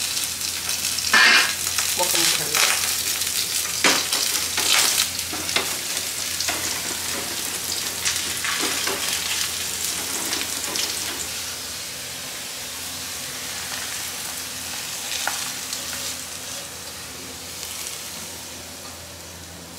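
Minced garlic sizzling in hot oil in a frying pan, stirred and scraped around with a wooden spatula. The sizzle and the scraping are strongest in the first half and die down through the second half.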